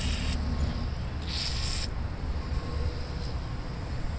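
Aerosol can of penetrating oil sprayed through its straw in two short hisses, the second about a second in, over a steady low rumble.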